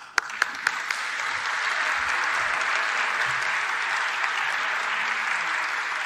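Audience applause: a few separate claps in the first second, quickly filling out into a roomful of people clapping steadily.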